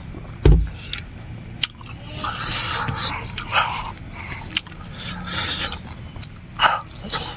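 Close-up eating sounds: chewing and mouth noises, in irregular bursts, with a low thump about half a second in.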